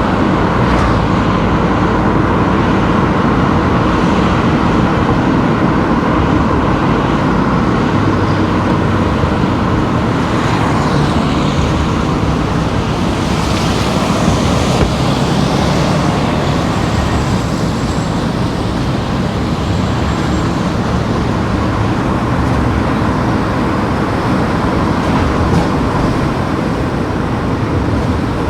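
Steady road noise of a car being driven: engine and tyres on tarmac. The hiss brightens briefly about halfway through.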